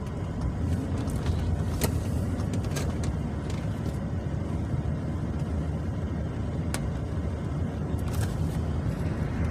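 Road and engine noise inside a moving truck's cab: a steady low rumble, with a few faint clicks.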